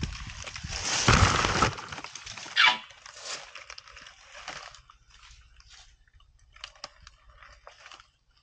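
Asian elephant feeding on vegetation: a loud rustle and crunch of leaves and branches in the first couple of seconds, a brief squeak, then fainter scattered crackles and snaps.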